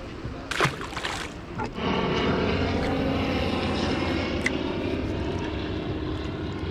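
A short splash as a released flathead drops into the water, then a boat's outboard motor runs steadily from about two seconds in.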